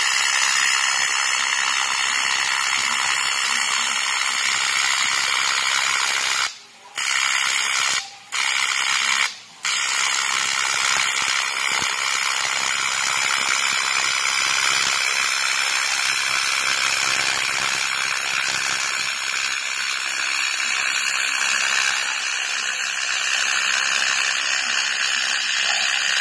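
AC TIG welding arc on aluminum, a steady buzzing hiss. It cuts out three times briefly, between about six and ten seconds in, as the arc is stopped and struck again.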